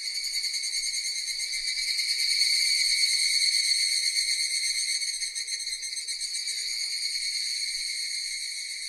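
Cicadas buzzing in a continuous high-pitched chorus that swells louder a couple of seconds in and then eases off again.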